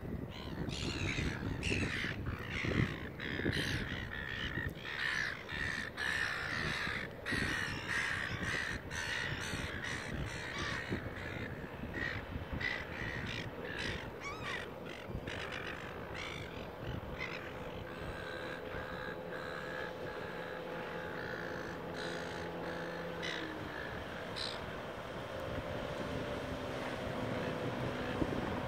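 Birds calling over and over with harsh, caw-like cries, thickest in the first half. From about halfway on, a boat motor's steady drone comes up beneath the fewer remaining calls.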